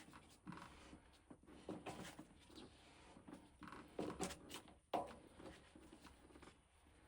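Faint, irregular clicks and scrapes of a PVC pipe fitting being handled and turned by hand while trying to start it on its threads, with a sharper click about five seconds in.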